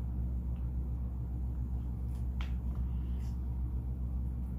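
Steady low hum of a through-wall air conditioner running, with a couple of faint clicks about two and a half seconds in.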